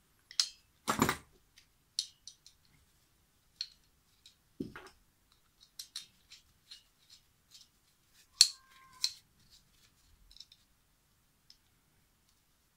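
Scattered light metallic clicks and taps of a small hand tool working on a model two-stroke engine's crankcase, with a duller knock about a second in and a sharp, briefly ringing metal clink about eight seconds in.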